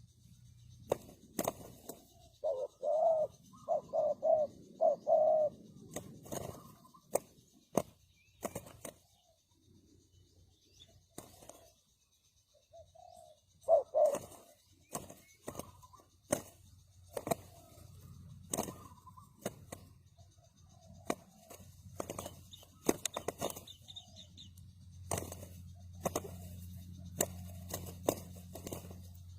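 Spotted dove cooing: a quick run of low coos a few seconds in and a shorter phrase near the middle, with scattered sharp clicks and knocks between them.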